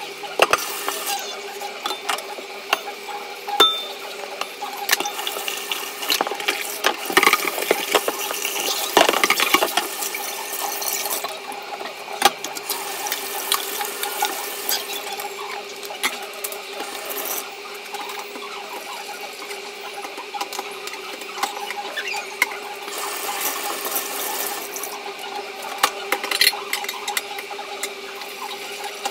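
Kitchen faucet running into a stainless steel sink while a rice cooker pot is washed by hand, with scattered knocks and clatter as it is handled.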